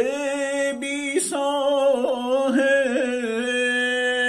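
A man singing unaccompanied in Persian vocal style, holding a long vowel on one steady pitch that breaks into quick wavering ornaments.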